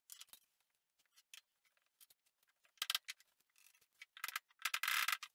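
Socket ratchet wrench clinking and clattering on the metal table top of a benchtop table saw, with a few light clicks between. There is a short clatter about three seconds in and a louder, longer clatter of metal clicks near the end.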